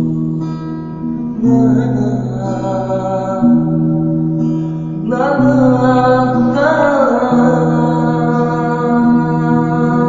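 Nylon-string classical guitar being played, with held bass notes that change every second or two under the chords. A voice sings a wavering line over it twice, about a second and a half in and again around five seconds in.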